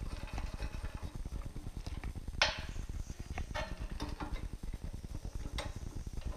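Bolts and a steel bracket being handled as the bolts are started by hand: a few sharp metallic clicks and knocks, the loudest about two and a half seconds in, over a low rapid flutter.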